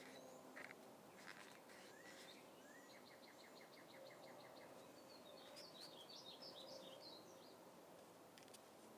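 Near silence with faint birdsong in the background: a fast trill of evenly spaced notes about three seconds in, then a jumble of short chirps a couple of seconds later.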